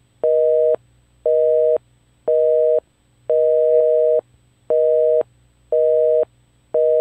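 Telephone busy signal: a steady two-note beep pulsing on and off about once a second, seven beeps, with the one in the middle held about twice as long.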